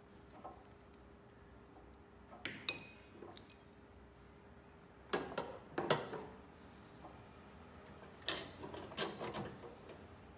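Small clinks and knocks of plastic and glass parts being handled, in three short clusters, about a quarter of the way in, around the middle and near the end, over a faint steady hum.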